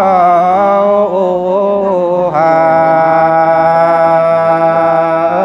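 A man's voice singing in a slow chanting style, traditional wedding exchange singing (hát giao lưu): wavering, drawn-out notes, then from about halfway one long held note.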